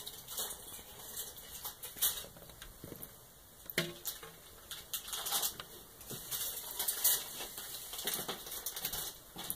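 A thin stream of tap water splashing into a stainless steel sink as a cat bats at it with its paw, making irregular taps and splatters, with a sharper knock about four seconds in.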